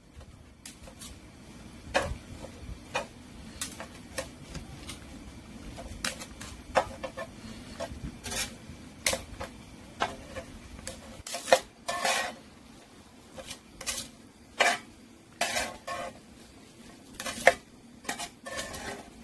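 Cooking utensils clinking and knocking against pots and dishes in an irregular series of sharp clinks and scrapes, over a low steady background noise that falls away about eleven seconds in.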